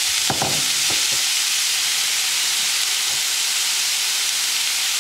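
Raw chicken breast strips sizzling in a hot pan, searing over high heat. The hiss is loud and even throughout.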